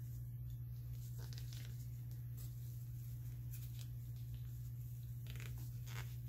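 Faint rustling and scratching of fabric as long straight pins are pushed through folded pleated trim, over a steady low hum.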